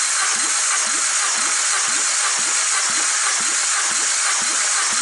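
Hyundai 1.4-litre 16-valve G4FA inline-four being cranked over for a compression test: a steady whirring of the cranking, with a light pulse about twice a second as the tested cylinder comes up on compression.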